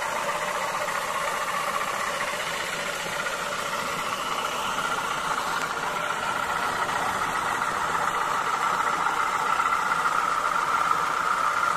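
Homemade thread-winding machine driven by an electric fan motor, running steadily: a constant motor hum with the whir of the belt-driven spinning drum. It grows a little louder in the second half.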